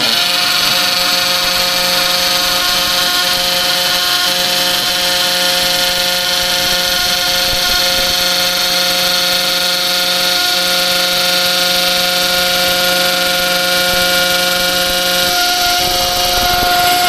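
A power tool's motor running steadily, with a constant whine over a noisy hum. The lowest part of the hum drops out about fifteen seconds in.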